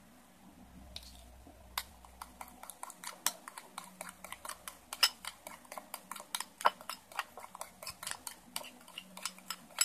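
Metal spoon stirring a thick slime base in a glass bowl, mixing in food colouring, clinking against the glass again and again at an irregular pace of several a second, from about two seconds in.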